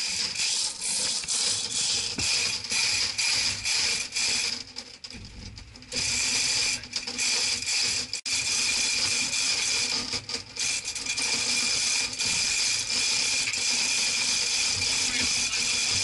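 Manual chain hoist (chain fall) being worked: rapid ratchet-pawl clicking and chain rattle. It comes in short pulses at first and runs almost without a break from about six seconds in.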